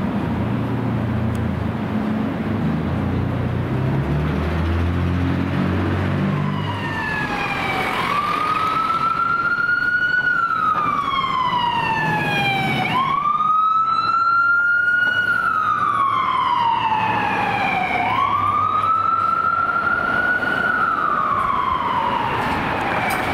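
An emergency vehicle's electronic siren in wail mode comes in about six seconds in. Each cycle climbs, then falls slowly in pitch over about five seconds and snaps back up. Before it, a low rumble of a heavy vehicle engine.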